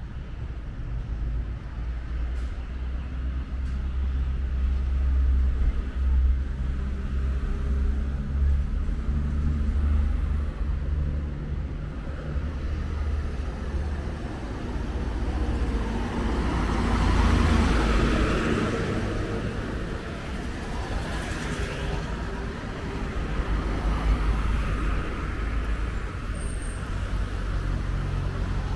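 Street traffic with a low rumble: a car drives past, growing louder and then fading, loudest about two-thirds of the way through.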